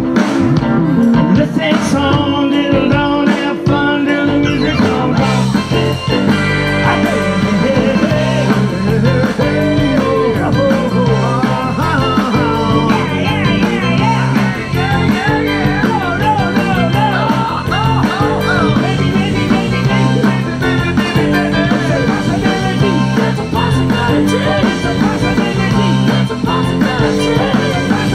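Live rock band playing loudly: drum kit, electric guitars and keyboard in a steady beat.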